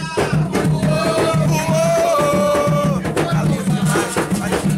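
Atabaque hand drums beating a steady rhythm under singing of a ponto; a voice holds a long note from about one to three seconds in.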